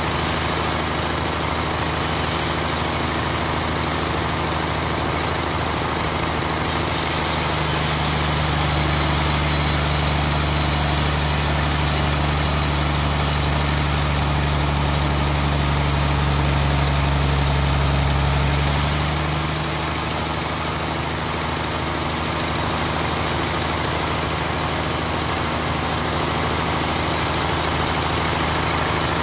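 Large band sawmill running with a steady machine hum. From about seven seconds in until about nineteen seconds, a louder, deeper hum with a rushing hiss joins it as the blade cuts through a thick wooden slab, then the sound drops back to the steadier running.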